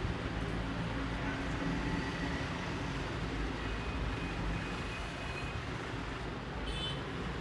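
Steady background noise of road traffic, a low, even rumble of passing vehicles.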